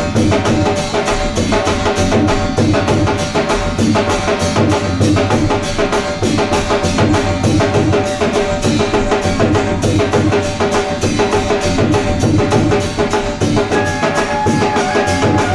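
Live Rajasthani folk music: drums keep a fast, steady beat under a sustained melody, which climbs to higher notes near the end.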